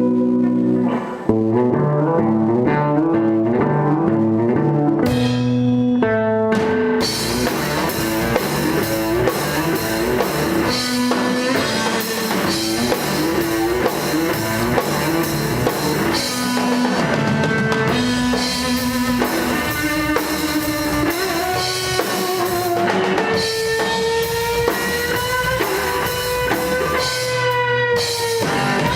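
Rock band playing live, instrumental: a repeating electric guitar riff, joined about seven seconds in by the full drum kit with cymbals. Near the end a held lead line bends slowly up and down over the band.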